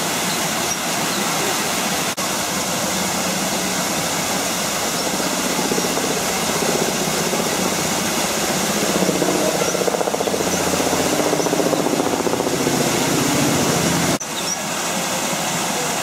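Steady rushing of a small waterfall, with a low hum swelling in the middle for several seconds and a few faint high chirps.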